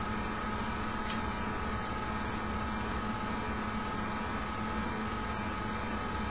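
Steady background hum and hiss of room noise, with a faint tick about a second in.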